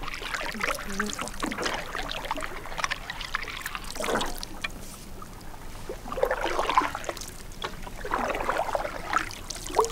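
Canoe paddle strokes on calm water: splashes and water trickling off the blade, a few strokes about two seconds apart.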